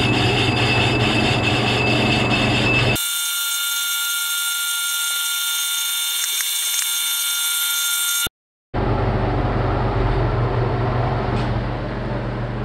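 Metal lathe running with a large faceplate blank spinning in its chuck: a steady machine drone with a low hum. About three seconds in, the sound abruptly narrows to a cluster of thin, steady high whines with no low end. It drops out completely for a moment after about eight seconds, and then the full running noise of the lathe returns.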